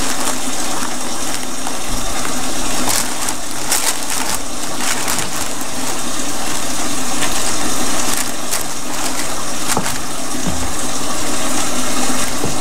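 Water running steadily from a kitchen tap into the sink, with a few short clicks and knocks of things being handled.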